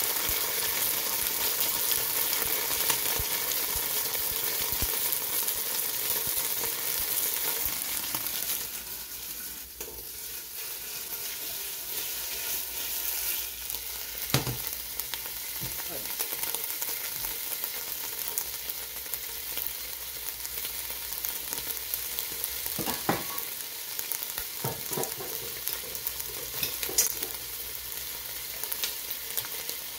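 Onion chunks sizzling and frying in hot olive oil in a large stainless steel pot, a steady hiss that eases somewhat about nine seconds in. A few sharp knocks against the pot come in the second half.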